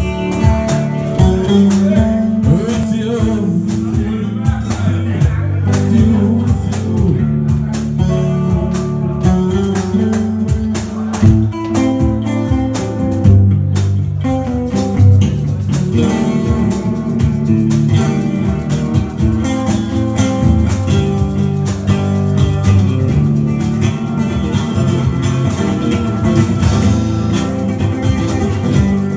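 Live electric guitar music with a steady percussion beat.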